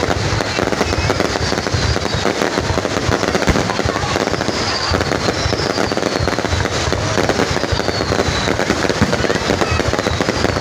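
Large fireworks display: a dense, continuous barrage of bangs and crackling from aerial shells bursting overhead, with several high, falling whistles.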